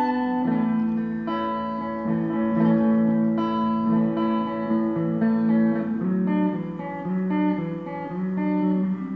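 Slow guitar jam of held, overlapping notes and chords.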